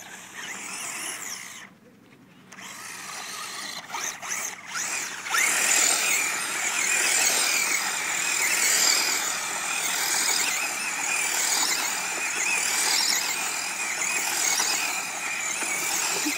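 Traxxas Bandit electric RC buggy's motor and drivetrain whining at high pitch as it slides and spins in circles on loose dirt. It gets louder about five seconds in, after a brief drop about two seconds in.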